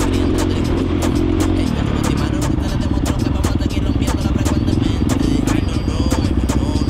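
Dirt bike engine running while being ridden, its note turning rapid and choppy about two seconds in, with frequent clatter and knocks.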